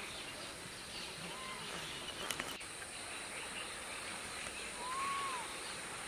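Natural outdoor ambience: a steady high insect drone, with two faint short whistled bird calls that rise and fall, and a few faint clicks about two seconds in.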